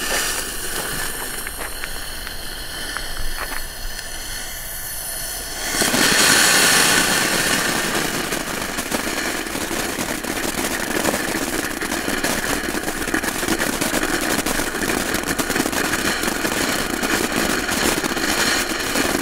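Weco 'Happy Hilde' ground fountain (a small youth-grade firework) burning with a continuous hiss. About six seconds in it flares up to a louder, steady hiss that holds to the end.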